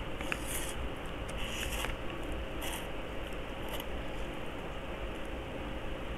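Instant noodles being slurped and chewed: a few short slurps in the first four seconds over a steady background hiss.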